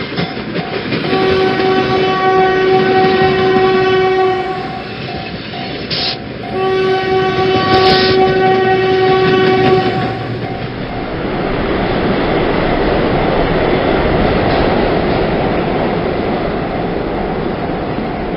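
Japanese level-crossing alarm ringing its steady "kan-kan" throughout. Over it a train sounds two long horn blasts, one about a second in and one about six seconds in, each lasting three to four seconds. After the second blast the train runs past with a steady rumble and rail clatter.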